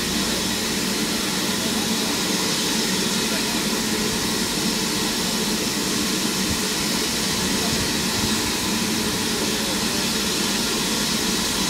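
Steam locomotive standing at the platform, venting steam in a loud, steady hiss and roar with no chuffing.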